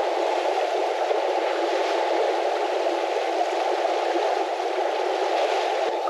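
Steady, muffled rush of wind and sea noise aboard a sailing yacht under way.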